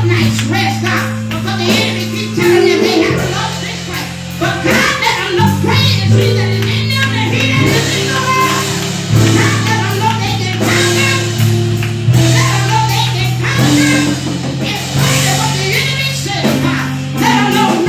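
Church worship music: held keyboard chords that change every couple of seconds, with singing over them.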